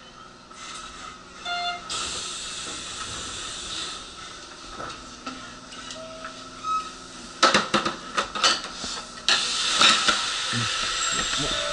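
Train's pneumatic doors hissing open about two seconds in, then a quick run of metallic clanks as a portable boarding ramp is laid at the doorway, followed by another loud hiss.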